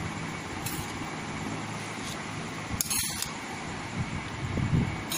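Steady mechanical hum under a steel spoon layering cooked rice into a steel pot, with a few light clinks of the spoon against the metal, the clearest about three seconds in.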